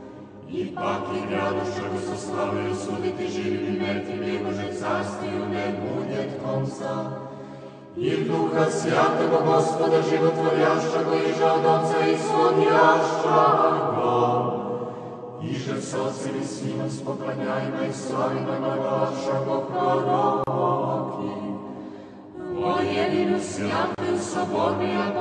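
Church choir singing Orthodox liturgical chant in long phrases, breaking briefly about 8, 15 and 22 seconds in.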